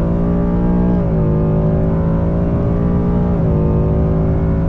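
2020 Ford Mustang GT's 5.0 V8 running hard under acceleration, heard from inside the car. The engine note dips slightly at two gear shifts, about a second in and again about three and a half seconds in.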